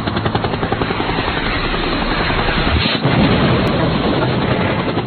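A loud, rapid, rhythmic chopping over a low hum, the kind of rotor-like pulse used as an intro sound effect, with a heavier low surge about three seconds in.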